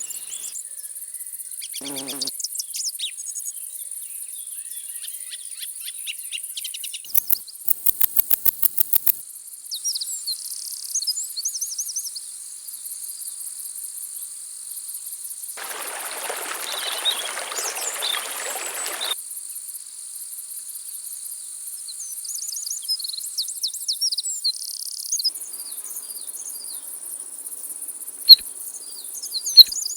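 Insects calling in a continuous high, steady trill, with small birds chirping over it. About seven seconds in comes a quick run of about nine loud clicks, and around sixteen seconds a rushing noise lasts for about three seconds.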